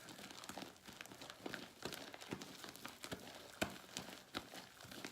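Fluffy glue-and-shaving-cream slime being kneaded and pulled by hand, giving irregular small clicks, pops and crackles, the loudest about three and a half seconds in. The slime is stiff and not yet stretching.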